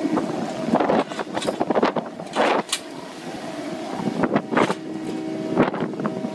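Fishing boat deck machinery running with a steady hum while a net is hauled in over the stern, with irregular knocks and clatter from the gear and wind on the microphone.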